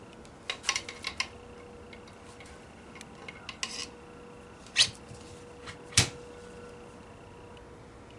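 Hands working a router bit into a Bosch plunge router: a quick run of small metal clicks about half a second in, a short scrape a few seconds later, then two sharper knocks about a second apart. A faint steady hum lies underneath.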